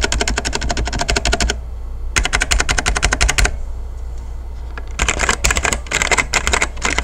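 Fast typing on a Machinike K500 mechanical keyboard with brown switches, in three runs of rapid keystrokes with short pauses between. It sounds a little hollow and a little pingy: the plastic case has no foam inside.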